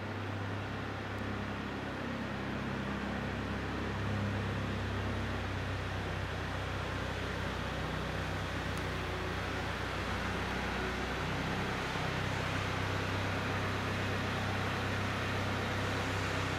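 A steady low mechanical hum under an even hiss, with no change in pitch.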